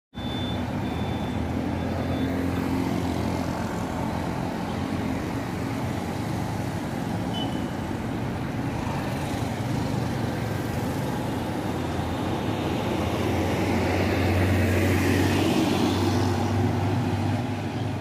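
Road traffic going by: a steady rumble of car and motorbike engines and tyres, growing louder between about fourteen and seventeen seconds in.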